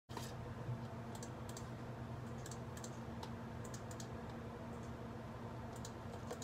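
Typing on a computer keyboard: irregular light key clicks, some in quick runs, over a steady low hum.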